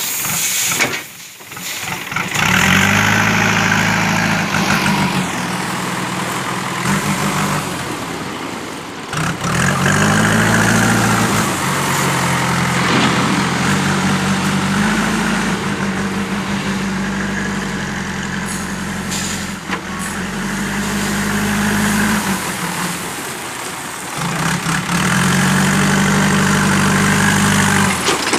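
JCB backhoe loader's diesel engine working under load, revving up and dropping back several times as the loader bucket digs into and lifts crushed stone.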